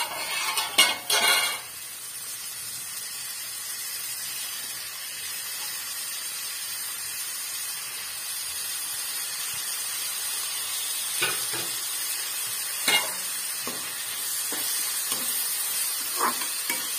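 Chopped onions and tomatoes sizzling steadily in hot oil in a kadai. A spatula clatters against the pan in the first second and a half, and knocks a few more times near the end.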